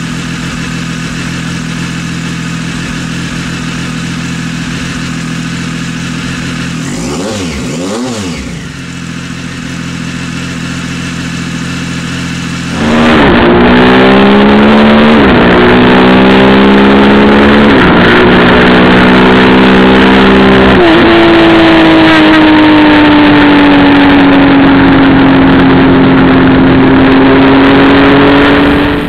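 Triumph Sprint ST three-cylinder engine idling steadily, with a brief wobble in pitch about seven seconds in. Then, very loud, full-throttle acceleration through the gears: the engine note climbs and drops back at three upshifts, then holds high revs at speed, sagging slightly.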